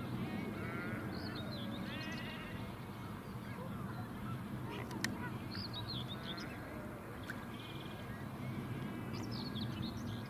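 Young waterbird chicks peeping over and over, in short high calls that bend up and down, with a single sharp click about halfway through. A steady low rumble runs underneath.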